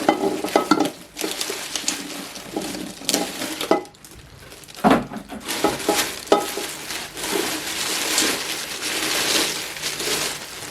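Clinks and knocks of a new electric multi-cooker's lid, inner pot and accessories being handled, then a steady rustling through the second half.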